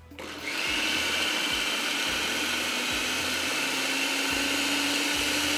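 Electric food processor starting up about half a second in and running steadily with a motor whine that rises slightly in pitch, chopping boiled moong dal with onion and green chillies into a coarse filling.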